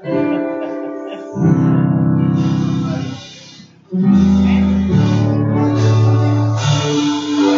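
Keyboard playing held chords, dropping away briefly about three seconds in and then coming back in with new chords.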